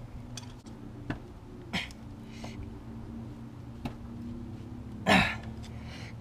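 Light clicks and taps of a hand tool gripping a stuck, overtightened oil filter, with a man's short strained grunt about five seconds in, over a steady low hum.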